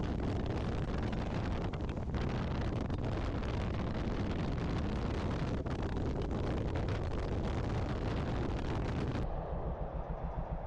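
Wind rushing over the microphone on a moving Royal Enfield Himalayan motorcycle, with the engine's drone underneath. About nine seconds in the sound cuts abruptly to a duller take in which the single-cylinder engine's quick, even pulsing stands out.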